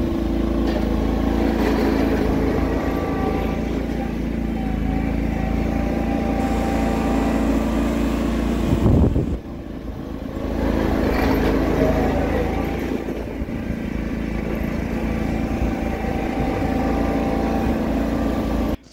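John Deere 425 lawn tractor's Kawasaki liquid-cooled V-twin engine running steadily. About nine seconds in there is a short dip, then the engine note rises and falls for a couple of seconds before settling again.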